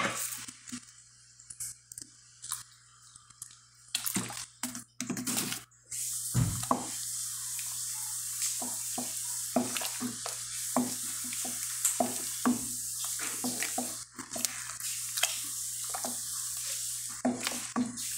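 A wooden spoon stirring rice and milk in a stainless steel pot for rice pudding, with scattered scrapes and knocks against the pot. From about six seconds in, a steady high hiss with small crackles comes from the hot pot on the stove.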